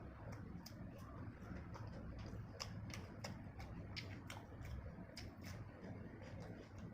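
Mouth sounds of someone eating: chewing and lip-smacking, heard as irregular sharp wet clicks a few times a second over a low steady hum.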